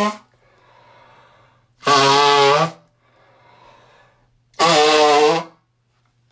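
A person blowing a congested nose hard into a tissue: two loud, honking blows, each under a second long and about two and a half seconds apart, after the tail end of an earlier blow at the very start. Softer breathing comes between the blows.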